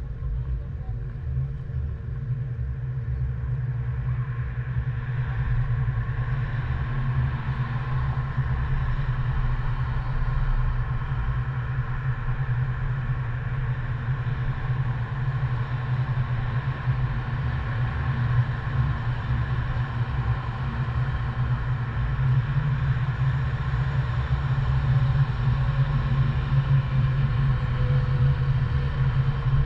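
Car on the move: a steady low rumble of engine and tyre noise, building a little over the first few seconds.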